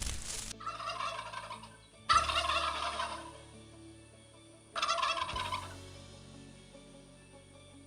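A bird calling three times, each call a short, rapid warbling burst, the second the loudest.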